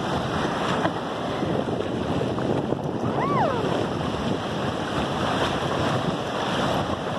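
Ocean surf washing onto the beach, with wind buffeting the microphone. About three seconds in, a brief high cry rises and then falls.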